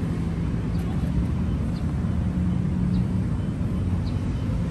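Steady low rumble of city traffic with a faint engine hum, and faint short high chirps about once a second.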